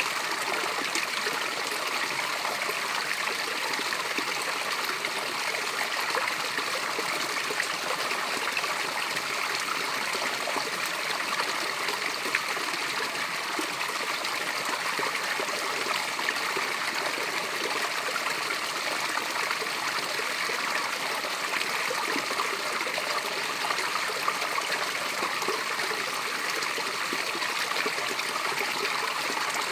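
A small waterfall's water cascading over rock, an even, unbroken rush and splash of water. The sound is mostly light and hissy, with little deep rumble.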